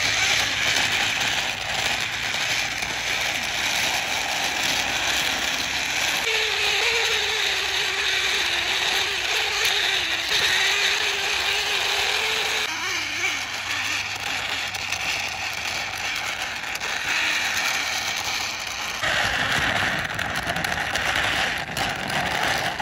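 Plastic toy oil tanker truck pushed by hand over a rough, mossy surface: its plastic wheels and axles give a steady rattling, gear-like whirr as it rolls. A wavering hum joins about six seconds in and drops out about halfway through.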